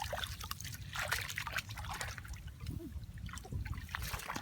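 Shallow water trickling and splashing in small, irregular splashes.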